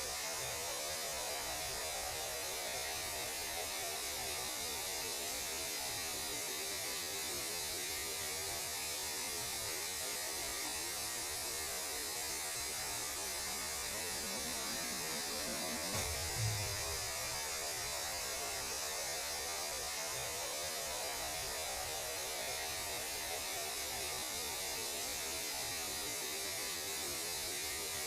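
Steady static-like hiss with an underlying hum, presented as the sound of space: cosmic radio noise turned into audio. A brief low thump comes about halfway through.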